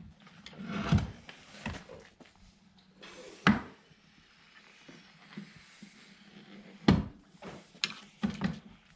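A run of knocks and clunks from a Minn Kota Fortrex bow-mount trolling motor being handled on its mount, as the motor is checked for deploying off the bow. The two loudest clunks come about three and a half and seven seconds in.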